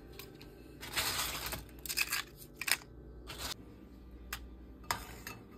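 Crisp fried tortilla pieces crackling and crunching as they are handled and laid on a plate: a series of short crackles, the longest about a second in.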